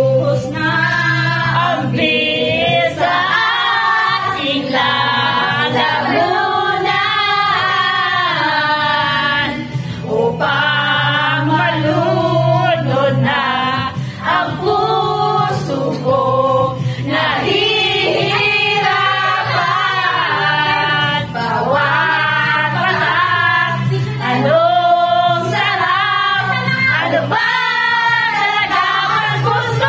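A group of women singing together loudly over backing music with a steady low bass line.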